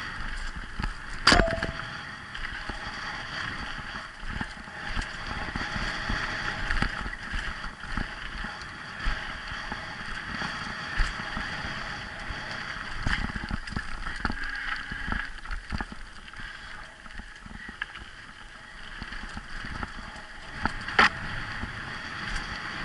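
Mountain bike riding fast down a dirt singletrack, heard from an on-board camera: tyres rolling on dirt, the bike rattling and knocking over bumps, and wind on the microphone. There are two sharp knocks, one about a second in and one near the end.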